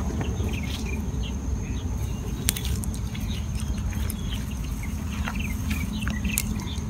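Outdoor ambience of small birds chirping in short scattered calls, with a steady thin high insect whine over a constant low rumble, and a couple of sharp clicks.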